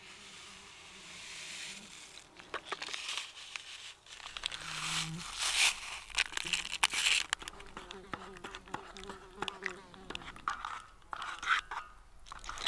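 Camp cookware and gear being handled for coffee: clinks, knocks and scrapes with some crinkling. A fly buzzes near the microphone in short stretches, the longest from about the middle for several seconds.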